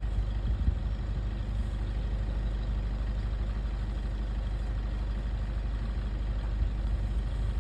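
Safari vehicle's engine idling with a steady low drone.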